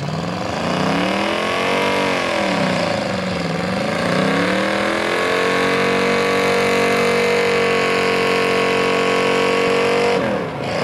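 Off-road 4x4's engine revving hard: the pitch climbs, dips about three and a half seconds in, climbs again and is held high and steady for about five seconds, then drops off near the end.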